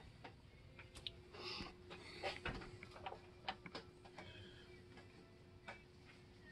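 Faint scattered clicks and light taps, a dozen or so at uneven intervals, over a faint steady hum.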